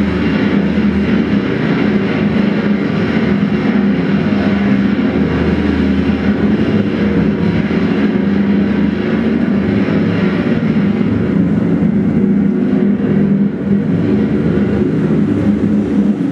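Live amplified drone music: a loud, dense, steady wall of droning noise with low notes held throughout.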